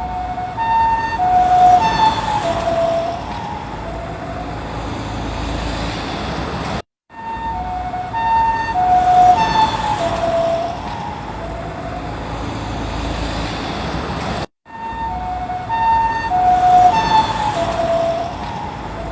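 Japanese ambulance two-tone siren passing by, its alternating high and low notes dropping in pitch as it goes past (Doppler effect) and fading into steady road traffic noise. The same pass is heard three times, each starting after a brief cut to silence.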